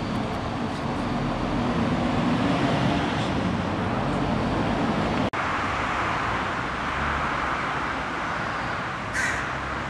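Steady hum of road traffic, with one short, high sound near the end.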